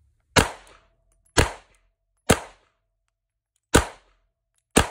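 Five pistol shots from an HK P30SK, spaced roughly a second apart with a slightly longer pause before the fourth. Each is a sharp crack with a short echo.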